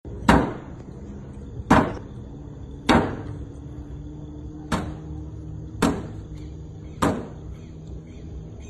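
Six loud, sharp blows on a car's body, each about a second or so apart, as a woman strikes the front of a Volkswagen Jetta. The first blows are the loudest.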